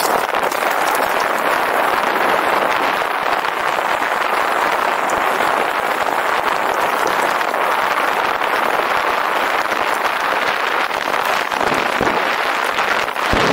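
Bicycle riding fast downhill on a rough gravel track: a steady rush of tyre and rattle noise with scattered small clicks and knocks, mixed with wind on the microphone.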